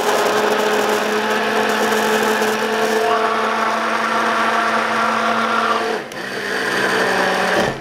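Litchi 4-in-1 hand mixer's immersion blender running in a beaker of diced tomatoes: a steady motor hum with a whine. It dips briefly in pitch and level about six seconds in, then carries on and cuts off just before the end.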